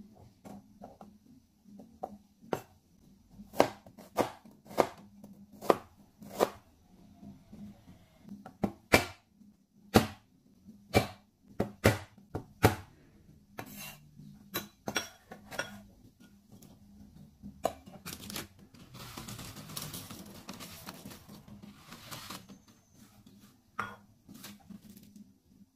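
A Chinese cleaver knocks on a wooden chopping board, cutting garlic cloves and ginger in irregular strokes, some sharp and loud. Near the end comes a few seconds of rustling noise, then two last knocks.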